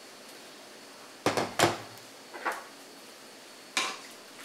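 Knocks and clatter of a Ninja Foodi pressure-cooker lid being set down on a wooden table while the cooker is handled. There are two loud knocks just over a second in, a lighter one, and another sharp knock near the end.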